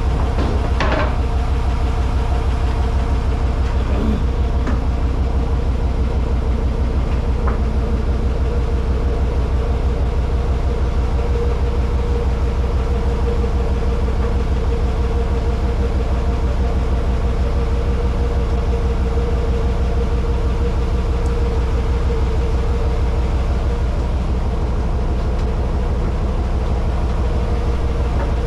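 A wooden river passenger boat's engine running steadily, with a constant low rumble and a steady hum. A few light knocks sound in the first several seconds.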